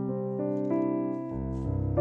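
Background piano music: a melody of notes changing every half second or so over held low bass notes.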